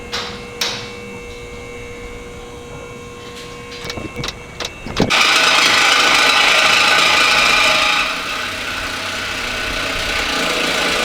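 Dodge Challenger Scat Pack's 6.4-litre 392 Hemi V8 starting, with the stock mid mufflers still in place. A few clicks come first, then about five seconds in the engine fires and runs loud for about three seconds before settling to a quieter, steady idle.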